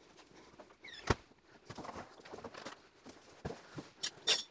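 Footsteps of work boots on a tile floor with a few light knocks and clicks, the sharpest about a second in.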